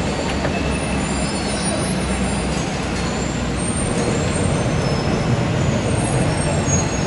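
Genting SkyWay cable car cabin rolling slowly through its station, heard from inside the cabin: a steady low mechanical rumble of the gondola and the station's conveying machinery.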